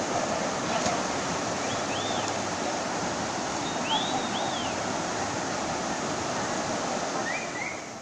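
Steady rush of flowing river water, with a few short, high rising-and-falling chirps over it, about two seconds in, around four seconds and near the end.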